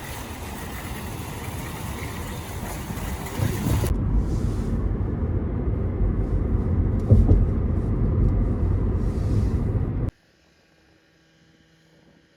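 Steady low vehicle rumble that gets louder about three and a half seconds in, then cuts off abruptly near the end to near silence.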